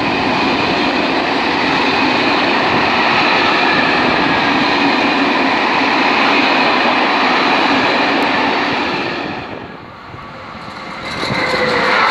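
Freight train of covered sliding-wall wagons rolling past close by, a steady rumble and rattle of wheels on rail that fades about ten seconds in as the last wagon goes by. Near the end a second train's sound rises as it approaches.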